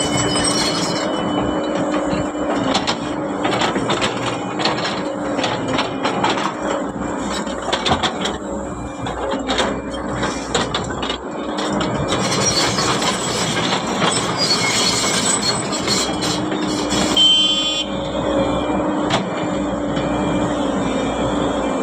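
Excavator working: its diesel engine and hydraulics run with a steady hum, over which scattered knocks and clanks come and go. About three-quarters of the way through there is a brief rapid run of high beeps.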